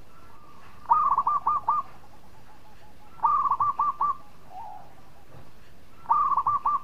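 Zebra dove (perkutut) singing: three cooing phrases, each a quick run of about five staccato notes, about three seconds apart.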